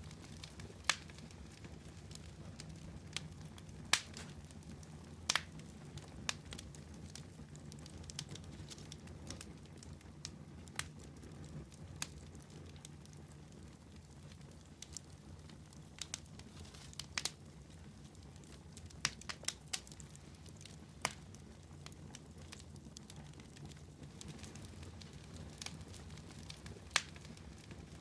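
Wood campfire crackling, with irregular sharp pops and snaps scattered over a low steady rumble.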